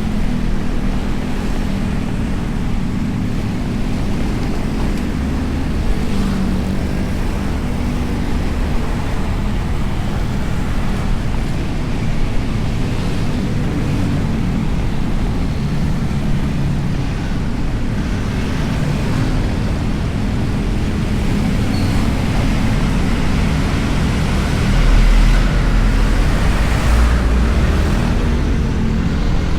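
Honda Beat scooter on the move: a steady low rumble of its small single-cylinder engine, tyres and wind buffeting the bike-mounted action camera, swelling louder near the end.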